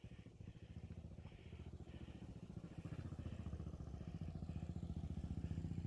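Motorcycle engine running at low revs, its exhaust pulses growing steadily louder as the bike approaches.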